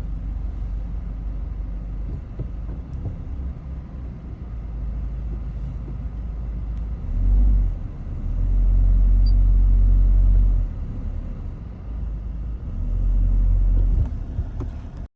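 Low rumble of a 2005 Honda CR-V running, swelling louder three times.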